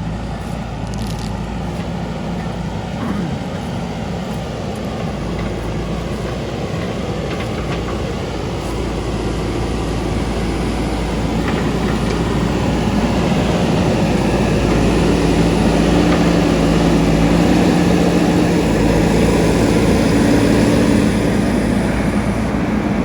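JCB 3DX Super backhoe loader's diesel engine running, getting louder and higher as it revs up about halfway through, then easing off a little near the end.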